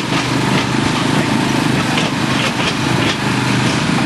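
Diesel locomotive engine running steadily, heard from an open car of the excursion train, with irregular light clicks over the low drone.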